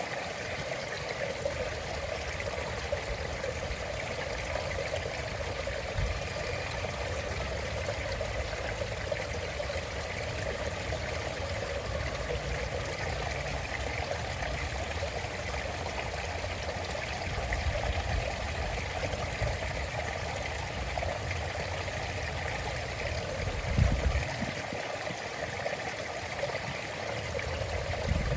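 Stream flowing and trickling steadily over a low rumble, with one brief low thump a few seconds before the end.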